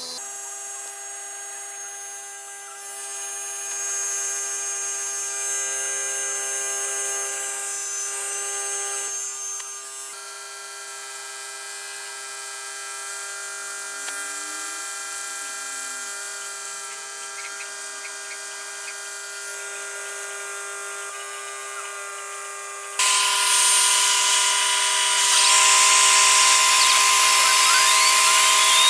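Mini CNC router's brushed DC spindle motor running at a steady pitch with a whine. About 23 s in the sound turns suddenly louder and harsher as the 1 mm end mill cuts into MDF. Near the end a whine glides up and back down.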